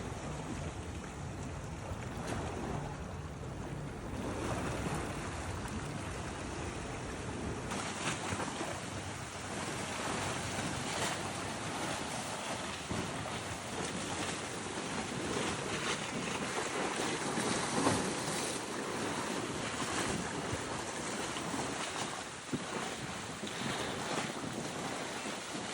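Caribbean sea waves washing in steadily, with wind rumbling on the microphone; about eight seconds in the low rumble drops away and the hiss of the surf comes to the fore.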